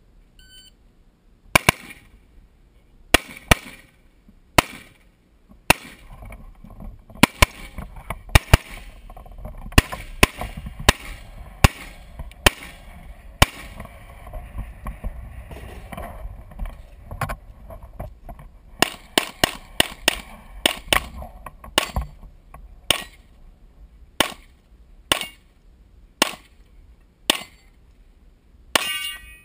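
A shot timer's electronic start beep, then a competitor's AR-style semi-automatic rifle firing about thirty shots in quick strings and singles with short pauses, engaging targets during a timed 3-gun stage.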